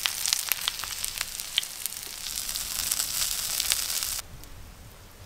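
Paneer tikka skewers sizzling in oil on a hot tawa: a steady hiss with scattered crackles that drops off suddenly about four seconds in.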